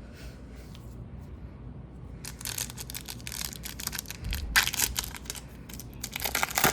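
A foil hockey card pack being torn open and its wrapper crinkled. It starts about two seconds in with dense crackling and sharp rustles, loudest near the middle and the end.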